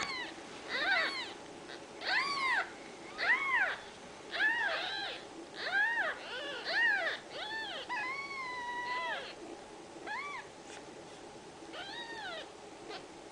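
Newborn Ragdoll kittens mewing: a string of short, high cries that rise and fall in pitch, one drawn out for about a second midway.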